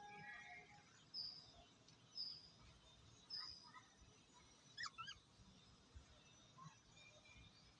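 Lovebirds chirping faintly: short high chirps about once a second, with a quick cluster of rising calls about five seconds in.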